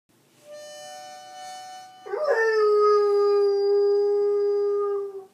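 A harmonica plays two held notes, the second a step higher. About two seconds in, a beagle breaks into one long, much louder howl that scoops up at the start, then holds a steady pitch until it stops near the end.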